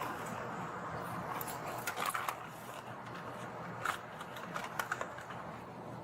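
Steady low background hum with a few short rustles and light clicks, as of papers being handled.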